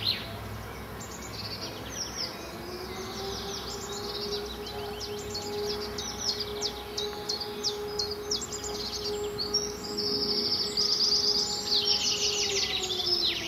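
Small birds chirping in quick, high, repeated chirps, growing louder about ten seconds in. Under them a steady hum sets in about two and a half seconds in and slides down in pitch near the end.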